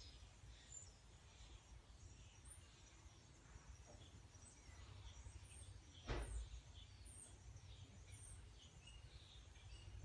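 Faint barn background of small birds chirping here and there over a low rumble, with a single knock about six seconds in.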